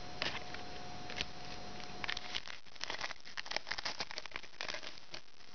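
Basketball trading cards being handled and shuffled: a few light clicks at first, then from about two seconds in a quick run of rustling and clicking of card stock that stops just before the end.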